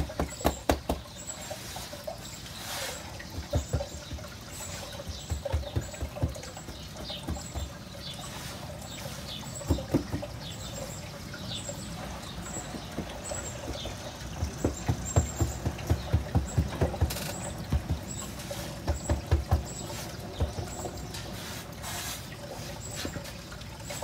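Hands patting and pressing down damp sand in a plastic utility tray, firming the sand mound that serves as the mould for a concrete bird bath. A run of soft, irregular pats and thumps, with quicker runs of pats about two thirds of the way through.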